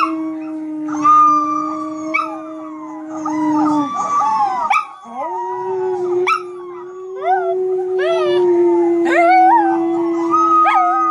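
A small dog howling in two long, steady howls, the second starting about five seconds in, while puppies on the computer's speakers yip and whimper in short, high, falling cries over it.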